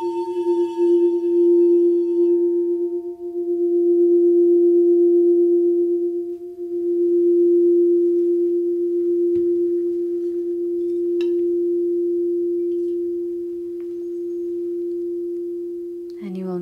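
Crystal singing bowl ringing one steady low tone, with fainter higher overtones from a strike just before that fade within the first few seconds; the tone swells and eases in slow waves. A woman's voice comes in right at the end.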